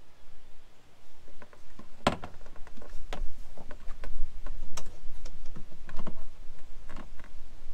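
Irregular clicks and knocks of a metal drawer slide and the wooden cabinet being handled as a drawer is fitted into place, with the loudest knock about two seconds in.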